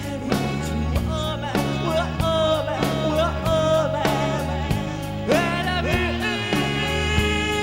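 Live rock band playing: lead vocals sung over drums, bass and guitar, with one long held note near the middle.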